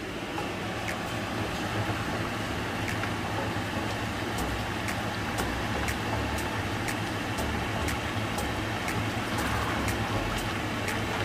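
Beef and onions cooking in a hot pan, stirred with a wooden spoon, over a steady low rumble, with sharp ticks about twice a second.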